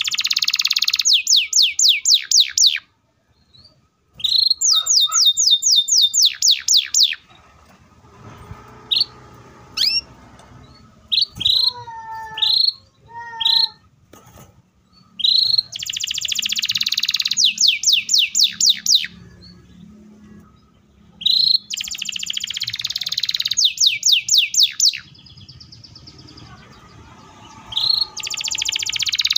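Canary singing in loud bursts about every five to six seconds: each a fast, dense roll followed by a rapid run of short notes sweeping downward, with softer scattered chirps in the gaps.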